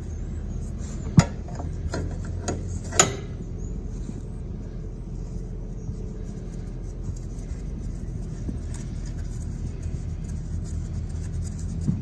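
A wrench clicking on the metal retaining nut of a mower's ignition switch as it is cracked loose, a few sharp metallic clinks in the first three seconds, the loudest about a second in. A steady low hum runs underneath.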